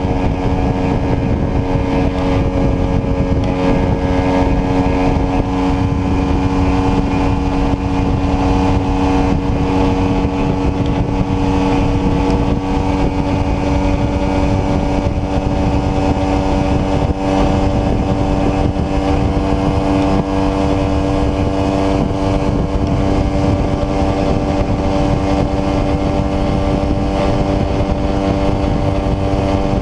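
Small single-cylinder sport motorcycle engine running at a steady cruise, its pitch holding level, heard from on the bike over a constant rush of wind and road noise.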